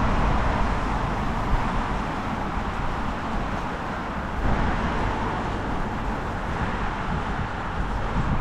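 Steady hum of road traffic from a busy road, rising and falling slightly as vehicles pass.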